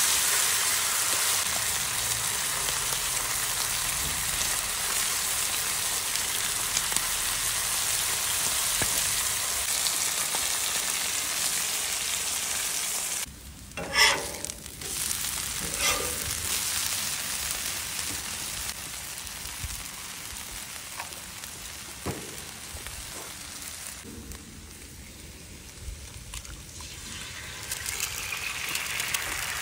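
Steaks sizzling hard on a Nexgrill 36-inch flat-top griddle while a steel spatula presses on them. After an abrupt cut, shredded hash browns sizzle more quietly, with a couple of sharp metal clinks from the spatula. Near the end an egg is cracked onto the hot oil and the sizzle swells again.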